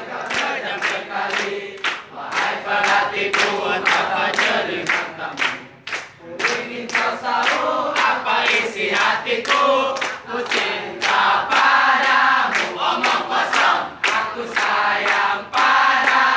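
A large group of young people singing together over a steady, sharp beat about three times a second, with a short break about six seconds in.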